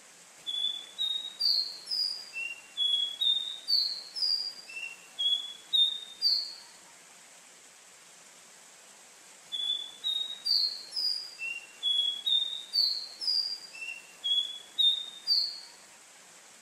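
Caboclinho, a Sporophila seedeater, singing: two phrases of about six seconds each, made of short high notes that each slide down in pitch, about two a second, with a pause of about three seconds between them. A faint steady hiss lies under the song.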